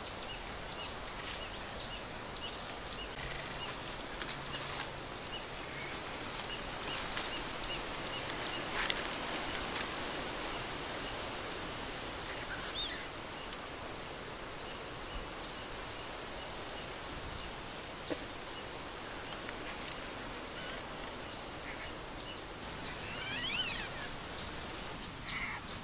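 Outdoor ambience with short, high bird chirps scattered over a steady background hiss, and a few brief rustles. Near the end comes a quick cluster of several falling calls.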